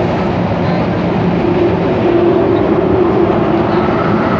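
MTR M-Train metro car running through the line, heard from inside the crowded car: a loud, steady rumble of wheels and running gear with a faint steady hum over it.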